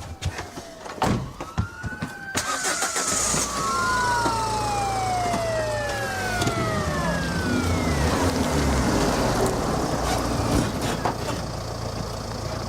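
Police car siren wailing with long falling sweeps over a running car engine, after a few sharp knocks at the start.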